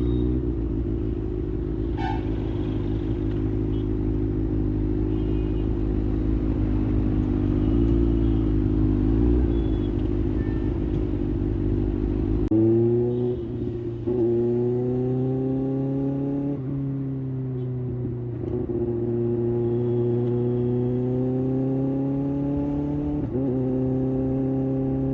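Kawasaki ZX-6R's inline-four engine running under way, steady at first with a heavy low rumble. About halfway in it changes abruptly, then climbs in pitch several times, each climb broken by a quick drop as the rider shifts up a gear.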